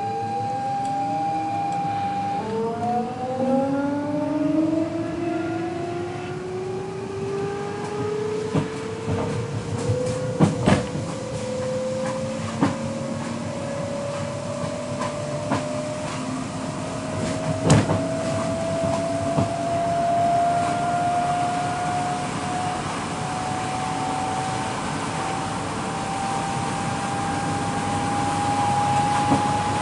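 Electric multiple unit of the Copenhagen S-train accelerating away from a station, heard from inside the carriage. The traction-motor whine climbs steadily in pitch as the train gathers speed, with several sharp clunks from the wheels crossing points between about 8 and 18 seconds in.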